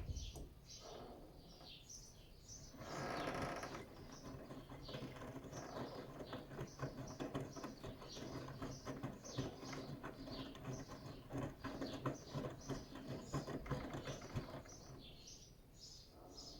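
Bosch iDos Serie 6 WAT286V0 washing machine drum turning the load through water during a 90 °C wash: irregular sloshing and splashing with small clicks and squeaks over a low motor hum, easing off near the end as the drum slows.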